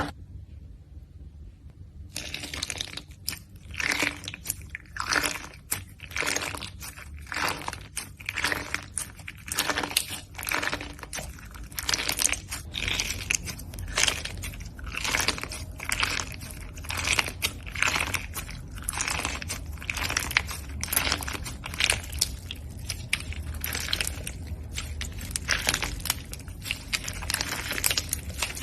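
Slime being squeezed and pressed by hand, giving a run of short crackling clicks, about one or two a second, starting about two seconds in.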